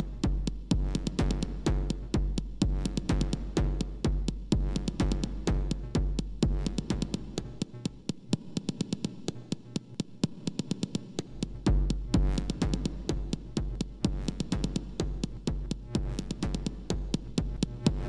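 Minimal techno played by a VCV Rack software modular patch: a steady synthesized kick drum from Kickall modules under dense, reverberant clicking percussion and synth tones. The kick drops out for about four seconds in the middle, then comes back in.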